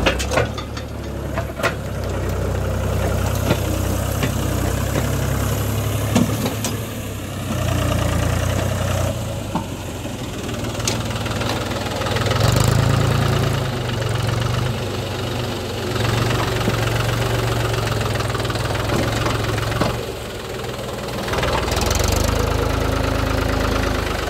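Mahindra 265 DI tractor's three-cylinder diesel engine running under load while pulling a loaded scraper bucket through sand, its loudness swelling and easing several times as the load changes.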